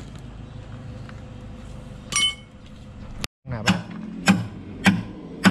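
Hammer blows on a steel excavator bucket tooth being fitted onto its adapter: four sharp, ringing metal strikes about 0.6 s apart in the second half. A single ringing metallic clink comes about two seconds in.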